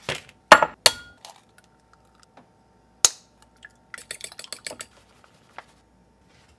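Kitchen dishes handled on a wooden cutting board: a few sharp clinks and knocks, then, a little after four seconds in, a quick run of clinks from a fork beating eggs in a ceramic bowl.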